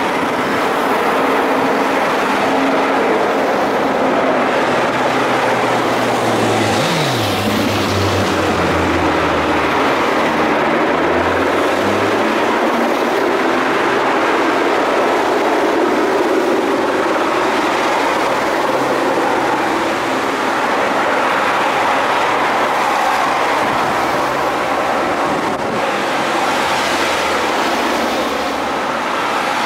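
Race convoy cars and vans passing close by on a wet road, a steady hiss of tyres with engines running. One engine's pitch drops as it passes, about seven seconds in.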